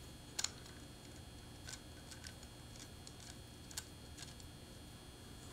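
Faint, scattered small clicks from a 1.5 mm hex wrench and fingers working a lens-hood lock ring and its clamp screw. A sharp double click about half a second in is the loudest.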